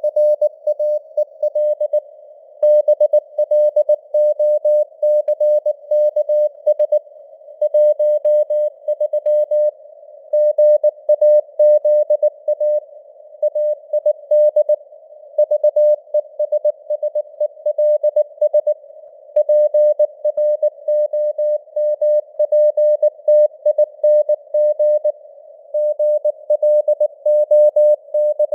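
Morse code (CW) sent at 19 words per minute: a single steady mid-pitched tone keyed on and off in dots and dashes, with gaps between letters and words, over a narrow band of simulated radio hiss.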